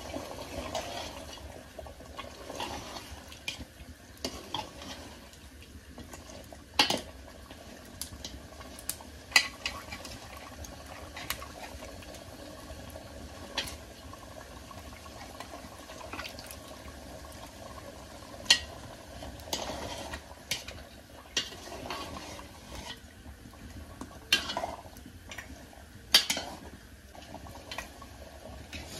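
A metal ladle in an aluminium pot of water as raw duck pieces are added and stirred: scattered sharp clinks of metal on metal, a dozen or so, with soft watery splashing between them.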